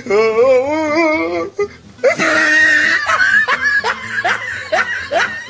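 Laughter: a long, wavering, high-pitched laugh, then after a short break a run of short laughs at about two or three a second.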